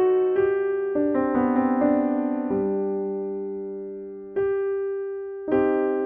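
Background piano music: a slow passage of struck notes and chords, each left to fade. A chord is held for nearly two seconds in the middle before single new notes come in near the end.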